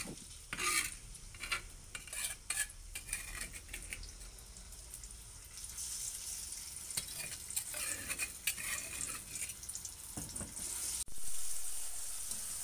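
Metal spatula scraping and clinking against a metal wok as ground spice paste is stir-fried, with a light sizzle that thickens about halfway through.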